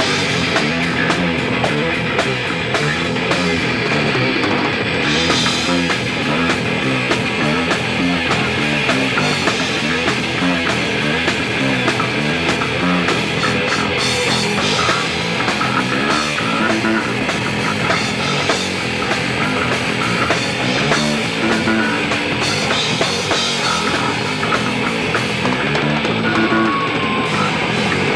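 Rock band playing live: electric guitars over a drum kit, loud and without a break.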